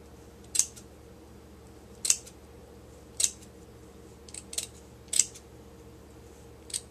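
Scissors snipping through the knit backing of faux fur fabric: a half-dozen short, sharp snips, roughly one a second.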